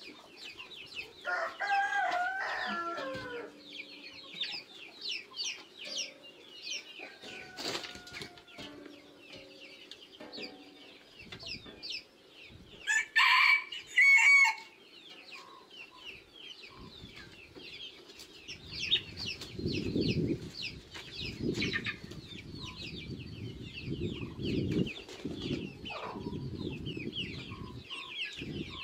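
Chickens clucking with constant high-pitched peeping, and a rooster crowing loudly about 13 seconds in. A low rumbling noise comes and goes in the last third.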